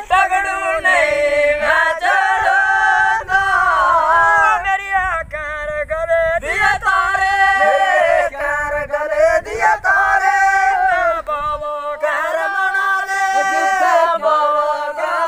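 Voices singing a Dogri bhakh, a traditional folk song, without instruments, in long drawn-out, wavering lines with held notes.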